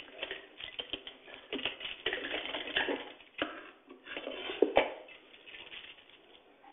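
Irregular clicks and cloth rustling from work at a hand-driven sewing machine as a sleeve seam is finished and the fabric is pulled free and handled. It grows quieter near the end.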